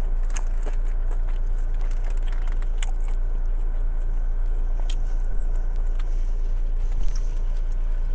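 Close chewing and small crisp mouth clicks of someone eating fried chicken, over a steady low hum from the running car he sits in.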